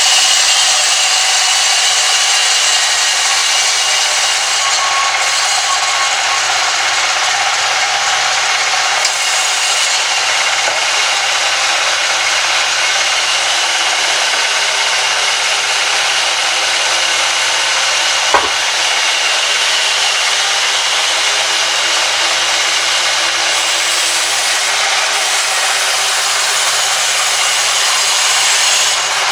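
Vertical band saw ripping a long log lengthwise as it is fed through by hand: a steady, unbroken cutting noise with a faint high tone in it, and one sharp click partway through.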